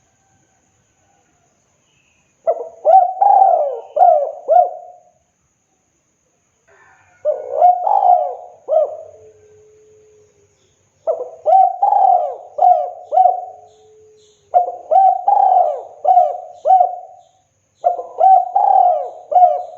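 Spotted dove cooing in repeated phrases, each a quick run of several hooked, rising-and-falling coos. It starts after a couple of seconds of quiet, and a new phrase comes every three to four seconds, five in all.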